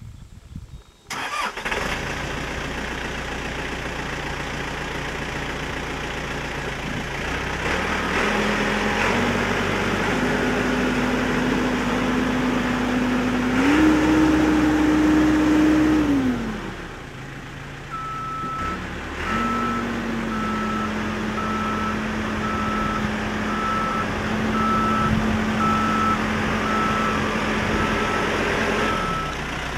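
Caterpillar 420D backhoe loader's diesel engine running, coming in abruptly about a second in; the revs rise around the middle, then drop back. From a little past halfway the machine's reverse alarm beeps steadily, about once a second, over the engine.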